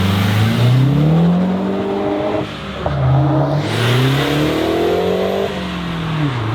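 A car accelerating hard through the gears. The engine pitch climbs, dips at a gear change about two and a half seconds in with a brief burst of hiss, climbs again through the next gear, then falls near the end.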